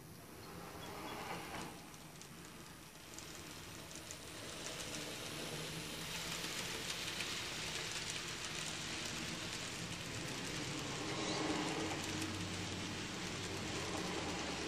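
Kato N-scale model train rolling past: the passenger cars' small metal wheels running over the track, a steady rattling hiss with fine clicks that grows louder over the first several seconds and then holds.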